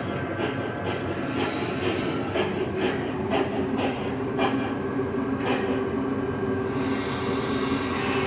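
Model electric trains running on track: wheels clicking in an uneven rhythm over the rail joints, over a steady motor hum. The clicking fades out about two-thirds of the way through and the hum carries on.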